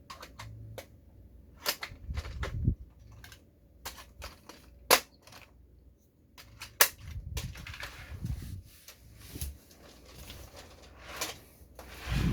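Sharp plastic clicks and knocks, irregular and some a second or more apart, with low handling rumbles: a plastic toy model being handled and its parts moved. The two loudest clicks come about halfway through.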